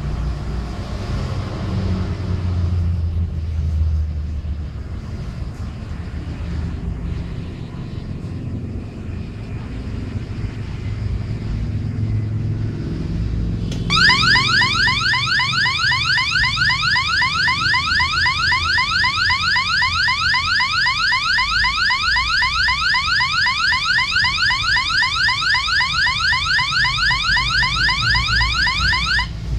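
Low rumbling background noise, then about halfway through a loudspeaker driven by an AT89S52 microcontroller through an L298N motor driver starts an alarm-like tone. The tone rises quickly in pitch over and over, about four sweeps a second, and it cuts off just before the end.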